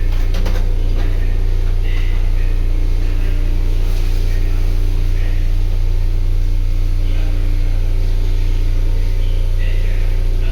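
Inside a Sendai Subway Namboku Line 1000N series train carriage running through the tunnel: a steady deep rumble with a constant hum that neither rises nor falls. There are a few light clicks right at the start.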